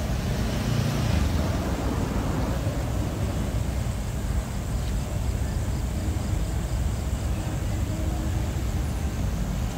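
Motorbike engines running, a steady low rumble with a light hiss over it.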